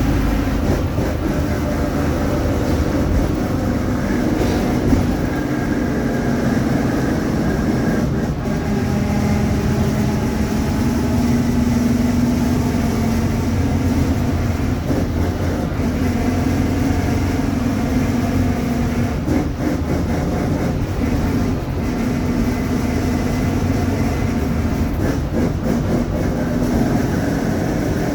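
A Mercedes-Benz OF-1721 BlueTec5 bus riding along, heard from on board: a steady engine and road rumble with the drone of the rear differential, a tone that shifts slightly in pitch as the speed changes.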